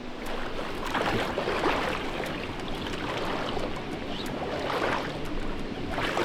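Stream water running and splashing, a steady rush that swells in uneven surges.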